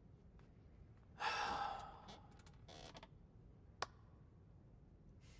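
A young man lets out one heavy sigh about a second in, then a softer breath. A single sharp click follows a little later, with faint ticks around it.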